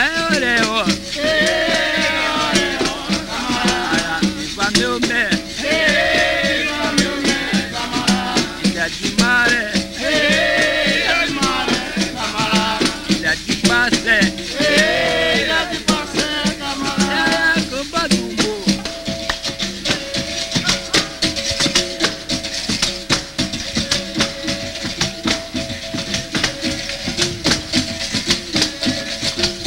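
Capoeira music: a sung verse over a shaken-rattle and pandeiro rhythm with berimbau. The voice stops about 18 seconds in, and the instruments play on with a steady held tone under the rattling.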